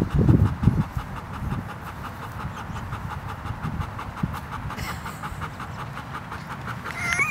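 Fast, rhythmic panting breaths, several a second, after a low rumble in the first second.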